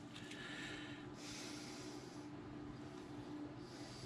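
Quiet work pause: a man's soft breathing through the nose over a faint, steady low hum.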